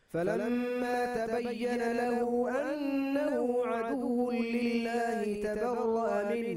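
A man reciting the Quran in melodic tajweed style, holding one long ornamented phrase on a single breath that falls in pitch and ends near the close.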